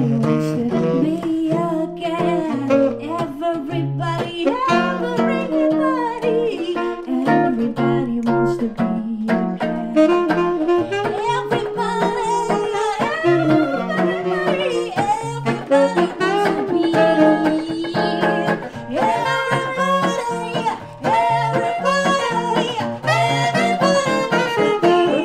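Live swing jazz: a tenor saxophone playing over steady acoustic guitar chords, with a woman's voice singing along at times.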